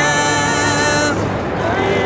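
Live rock band with vocals playing a song: a note is held for about a second, then a new sung line starts near the end.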